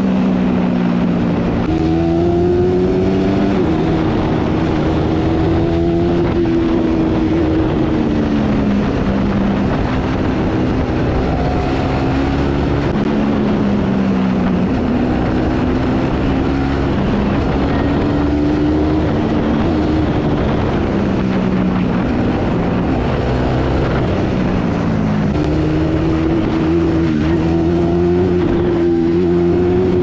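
Bajaj Pulsar NS200's single-cylinder engine through its stock exhaust, heard on the move. The engine note steps up and falls back several times as the rider works the throttle.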